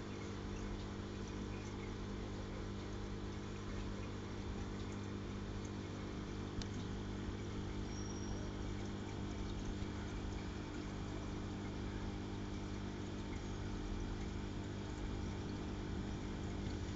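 Steady aquarium equipment running: an even electrical hum with a noisy wash of water over it.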